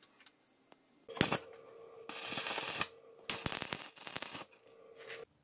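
Electric arc welding: several short bursts of crackling hiss as tack welds are laid on steel tubing, one lasting most of a second, over a steady hum that starts and stops with the welding.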